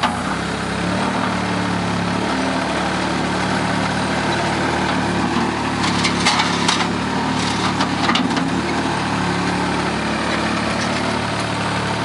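ASV RC-30 compact track loader's engine idling steadily, with a few light clicks or knocks about six to eight seconds in.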